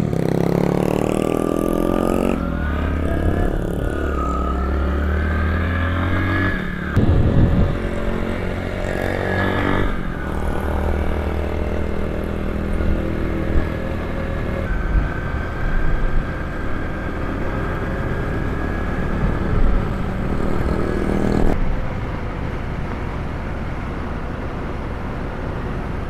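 Motorcycle engine running under way, its pitch rising as it accelerates early on, then holding steady, and easing off about three-quarters of the way through.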